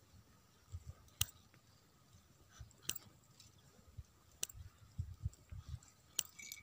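Faint, sharp clicks of scissors snipping the woollen yarn of a bag's tassels, four or five snips spaced about a second or two apart, with soft thuds of the bag being handled.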